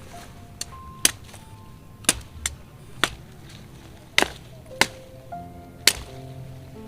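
Background music of held notes changing pitch, with sharp, clean strikes about once a second.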